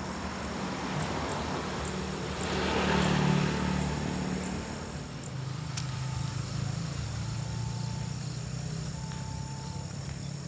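Insects trilling steadily, with a swell of broad noise that rises and falls about three seconds in. In the second half a short held tone comes and goes a few times.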